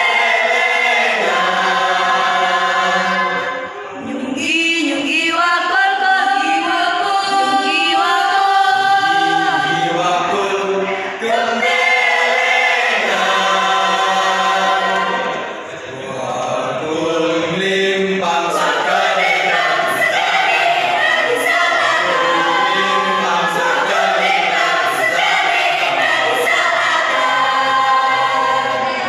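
Mixed choir singing in several voice parts, sustained sung phrases with a few brief dips between phrases.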